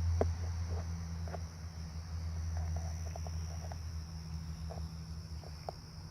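Crickets chirping steadily over a constant low hum, with scattered soft crunches of footsteps on the ground.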